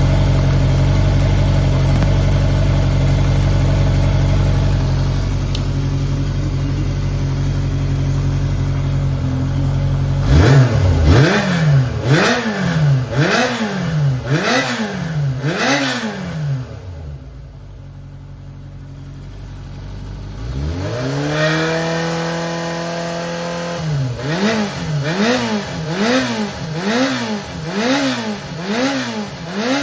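Early Kawasaki Zephyr 400's air-cooled inline-four idling steadily, then revved in quick throttle blips about once a second. About halfway through it drops back to a low level for a few seconds, rises to a held higher rev, then is blipped repeatedly again. It runs cleanly, with no abnormal noises.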